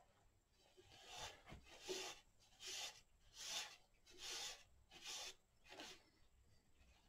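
Faint rhythmic rubbing of a paper towel wiped back and forth by hand over an oak workpiece, working abrasive compound into the wood. About seven strokes, starting about a second in.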